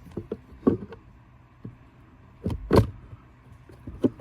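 Handling noise of the auxiliary battery and its plastic housing being fitted back into place: a few scattered sharp clicks and knocks, loudest about two and a half to three seconds in.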